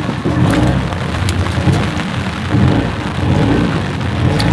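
Rain falling steadily, with a heavy low rumble underneath that swells near the start and again near the end, and a few sharp taps.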